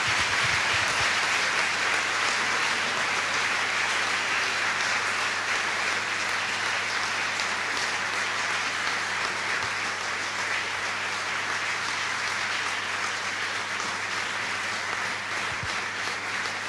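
Audience in a large hall applauding steadily at the end of a lecture, a dense, continuous clapping that eases slightly toward the end.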